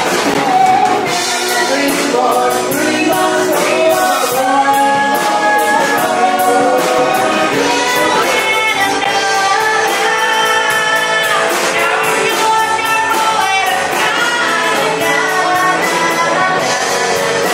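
A live band playing a song with a steady drum beat, a woman singing the lead vocal.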